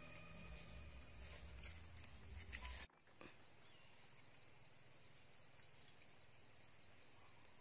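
Faint insect chirping, high-pitched and pulsing rapidly at about five chirps a second. It is heard clearly after the background music's tail cuts off about three seconds in.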